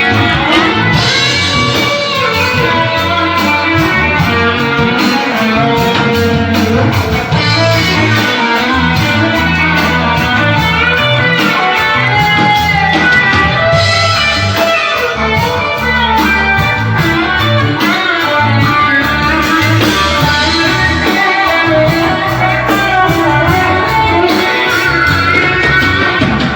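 Electric guitar played through a Q-pal overdrive pedal, with continuous notes and chords at a steady loud level.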